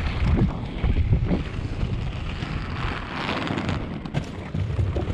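Wind buffeting the action-camera microphone over the low rumble of three-wheel inline skate wheels rolling on tarmac, with a few sharp knocks along the way.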